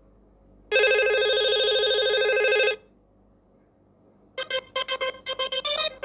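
Nokia 5130 XpressMusic ringtones played one after another. A steady electronic ring tone sounds for about two seconds, followed by a short silence. About four and a half seconds in, a new ringtone starts with short, repeated synth notes.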